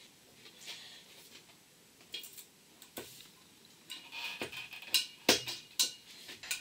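Soaped rubber hose being pushed and worked onto a metal pipe fitting on an air compressor's cylinder head: faint rubbing and handling, a brief squeak, and several sharp clicks and knocks, the loudest in the second half.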